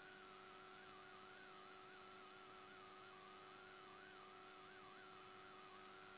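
Near silence: faint hiss and steady low hum, with a thin high tone that wavers slowly up and down.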